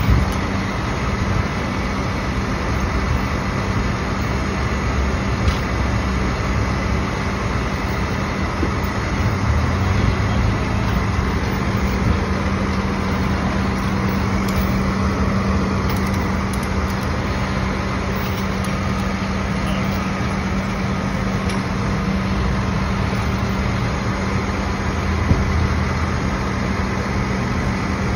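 Flatbed tow truck's engine idling steadily, a low rumble with a constant hum.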